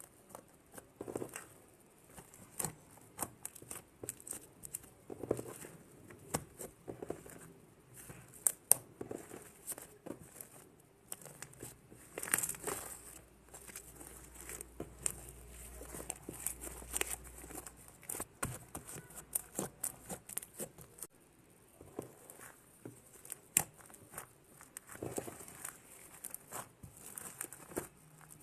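Fluffy slime made from glue, borax and shaving foam being worked by hand, giving irregular crackling, small popping clicks and soft squishes.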